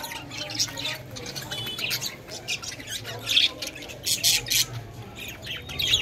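A flock of budgerigars chattering, with many short, rapid, overlapping squawks and chirps.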